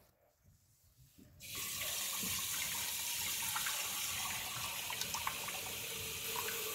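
Kitchen tap turned on about a second and a half in, water running steadily into the sink.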